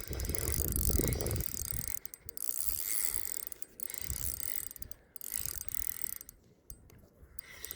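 Spinning reel being cranked in several spurts with short pauses, its gears whirring as line is wound in.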